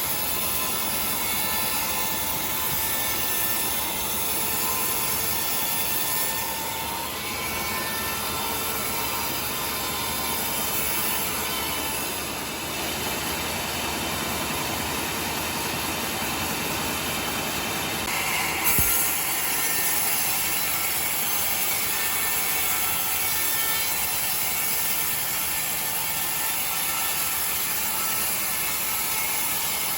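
Sawmill saw running steadily as it cuts through timber, with one short knock about two-thirds of the way through.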